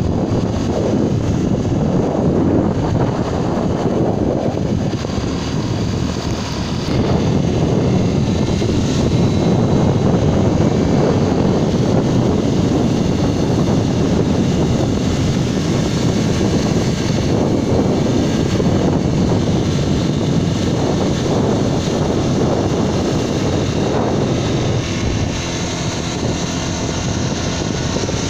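Wind buffeting the microphone and road noise from a moving vehicle: a steady, loud rushing that does not let up.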